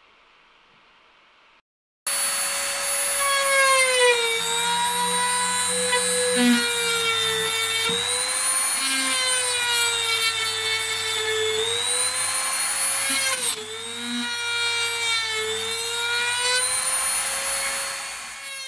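HILDA JD3321C rotary tool running at high speed with a saw disc, starting suddenly about two seconds in. Its high whine sags in pitch several times as the disc bites into the work and recovers between cuts, then starts to fade near the end.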